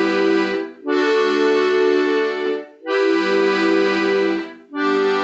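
Squeezebox (accordion-type free-reed instrument) playing the introduction to a folk song: full, held chords in phrases of about two seconds, with short breaks between them.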